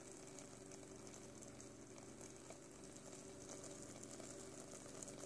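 Faint simmering of chickpeas, shredded chicken and lettuce in a pan, with light bubbling and tiny ticks over a steady low hum.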